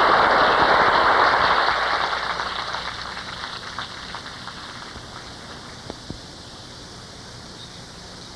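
Audience applauding, loud at first and dying away over the first few seconds, with a couple of last scattered claps.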